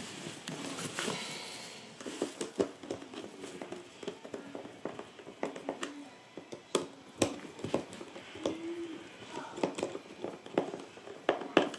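Stubby screwdriver tightening a luggage handle's mounting screws from inside the suitcase: irregular small clicks and taps of the tool on the screws and metal bracket.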